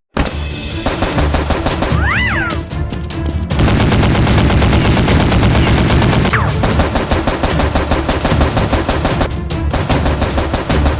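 Rapid, continuous bursts of automatic gunfire over background music, with a brief high gliding whine about two seconds in.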